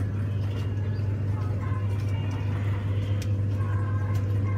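Ferris wheel's drive machinery running with a steady low hum, with a few light clicks and faint distant voices.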